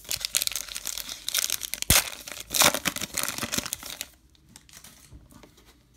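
Baseball card pack wrapper being torn open and crinkled for about four seconds, with one sharp snap about two seconds in, then only faint card handling.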